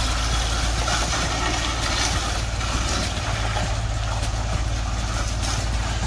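Concrete pump truck's diesel engine running steadily as concrete is pumped through the hose into footing forms.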